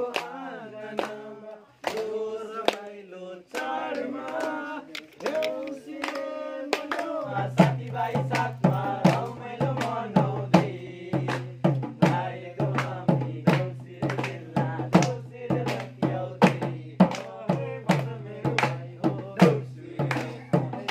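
Young men singing a Deusi chant. About seven seconds in, a madal hand drum starts beating steadily, about two strokes a second, with hand claps and a steady low hum beneath.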